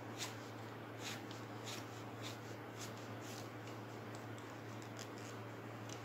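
Thin cord being handled and pulled through the fingers while strands are woven over and under: soft rustling with a dozen or so light, scattered ticks, over a faint steady low hum.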